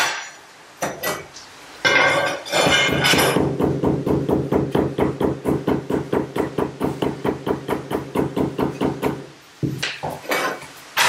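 Rubber mallet tapping fast and evenly on freshly laid wood-look ceramic floor tiles, about seven taps a second with a ringing tone, for several seconds before stopping abruptly. The taps bed the tiles into the adhesive.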